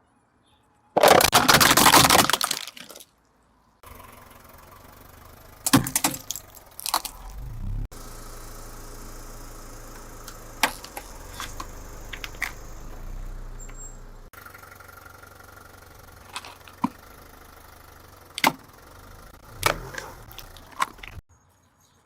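A car tyre rolling over and crushing brittle objects: a loud crunch about a second in, then scattered sharp cracks and snaps over a low engine hum, in several short clips separated by abrupt cuts.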